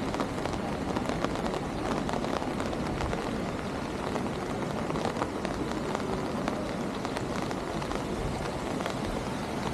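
Steady rain on a city street: a continuous hiss with many small ticks of drops.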